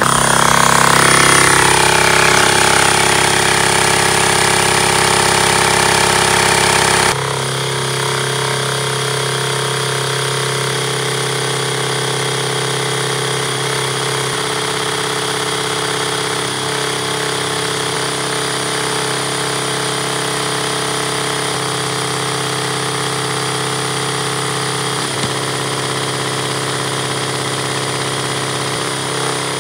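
Battery drill running steadily to shake a homemade wire-mesh soil screen (a power screener), the screen vibrating as dirt is sifted. The level steps down about seven seconds in, then holds steady.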